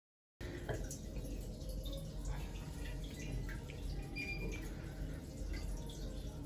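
Water dripping and trickling in a small, tiled toilet cubicle over a steady low hum, starting suddenly about half a second in after silence.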